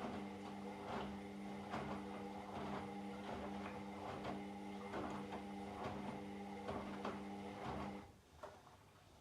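Washing machine drum turning during a wash: the motor hums steadily while the laundry tumbles with a knock a little under once a second. The motor stops about eight seconds in, followed by a single faint click.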